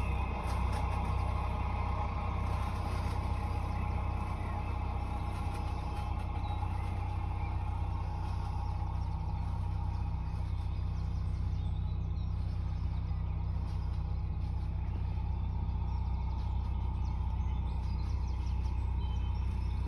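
Boat engine running steadily at cruising speed, a constant low drone with a steady hum higher up.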